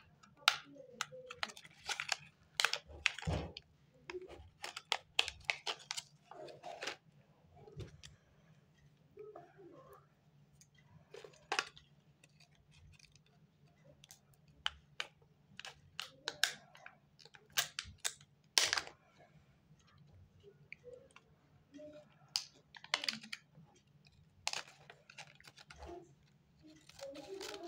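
Plastic candy wrappers crinkling and crackling in hand in irregular bursts, with scissors snipping a packet open. A steady faint low hum runs underneath.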